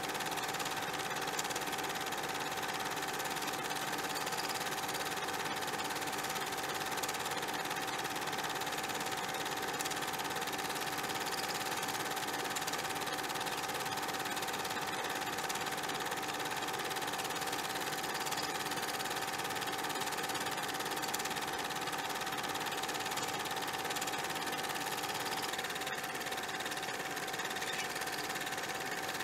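A steady machine-like whirr with a constant hum running through it, unchanging in level and pitch throughout.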